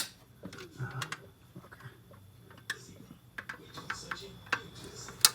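Sharp clicks and light taps from hands fitting a distributor cap, its hold-down latches pushed down and twisted into place. There is a loud click at the start and another near the end, with lighter ticks between.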